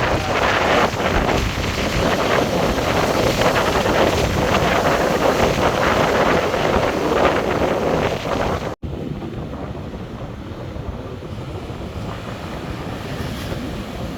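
Hurricane-driven surf breaking on a beach, with strong wind buffeting the microphone. About nine seconds in, the sound cuts off abruptly and comes back quieter and duller.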